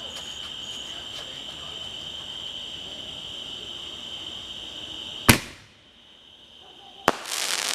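Steady high-pitched insect chirring, like crickets, broken by a loud sharp bang about five seconds in, after which the chirring stops. A second sharp crack and a short burst of hissing noise follow near the end.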